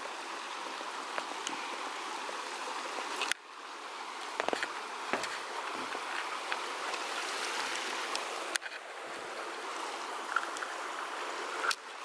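Water rushing steadily down a concrete spillway, an even hiss, with a few scattered light clicks and knocks. The rush dips briefly twice.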